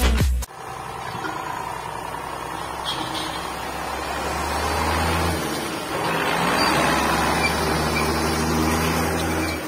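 John Deere 6610 tractor's diesel engine running steadily under load while it pulls a seedbed cultivator through dry soil, with a brief dip in level about six seconds in.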